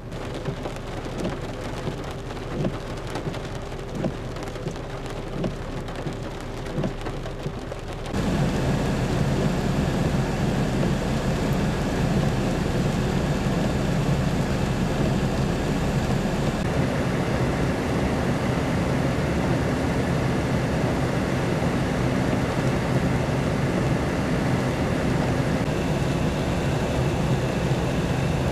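Heavy rain falling and splashing on standing floodwater, with scattered drip ticks. About eight seconds in it switches abruptly to a louder, denser downpour that keeps steady.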